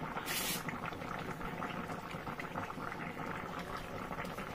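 Pot of yam and plantain pepper soup at a rolling boil: steady bubbling and crackling, with a brief burst of hiss shortly after the start.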